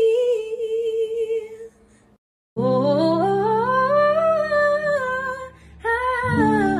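A woman's voice holds a last sung note, wavering slightly, and fades out. After a short gap, she hums a wordless melody that rises and falls, over strummed acoustic guitar chords.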